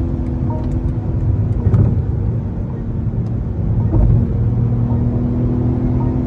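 Car cabin at highway speed: a steady engine drone under a low road and tyre rumble, shifting slightly about four seconds in.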